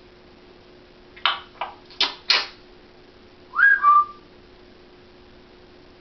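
African grey parrot making four short raspy sounds in quick succession, then a short whistle that rises and drops to a lower held note.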